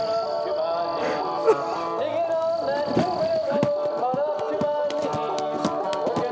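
Music: a melody of held notes that slide and bend in pitch.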